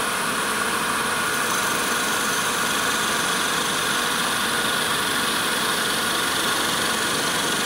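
Wood lathe running steadily at speed, a constant hum, while a 1-inch skew chisel cuts along the spinning wooden spindle.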